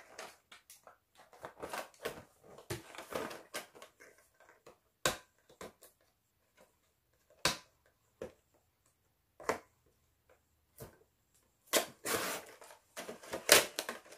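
Plastic packaging being handled and unwrapped: irregular crinkles, clicks and snaps with quiet gaps between, and a denser, louder run of crinkling near the end.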